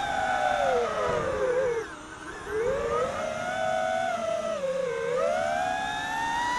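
Diatone Roma F5 five-inch FPV quadcopter's brushless motors and propellers whining, the pitch swooping with throttle. It drops and goes quieter about two seconds in, climbs back, dips again around five seconds, then rises steadily.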